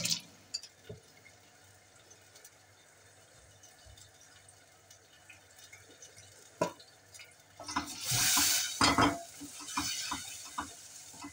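Wooden spoon stirring and scraping frying onions in a stainless steel pot, with a burst of sizzling. It starts near the end after a mostly faint stretch, a series of knocks and scrapes against the pot.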